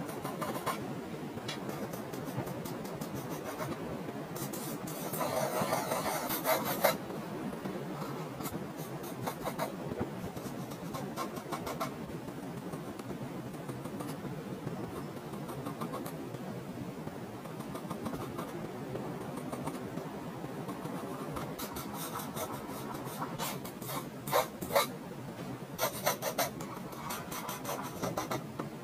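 Graphite pencil scratching across drawing paper as loose construction circles and lines are sketched. Clusters of quick, louder strokes come around five seconds in and again over the last several seconds.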